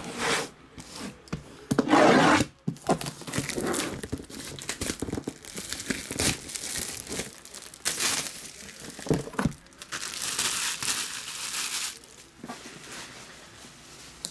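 Plastic shrink wrap being torn and pulled off a cardboard box: irregular crinkling and tearing, loudest about two seconds in, dying down near the end.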